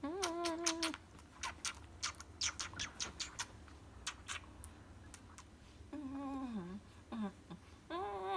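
Rapid kissing smacks against a long-haired Persian cat, mostly in the first half. A few short meows are heard among them: a longer one at the start, a falling one later and two brief ones near the end.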